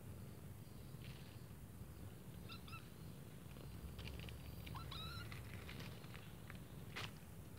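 A kitten eating a mouse: a steady low rumble from the kitten, with scattered sharp crunching clicks as it chews, mostly in the second half. A few short high chirps sound about two and a half seconds in and again around five seconds.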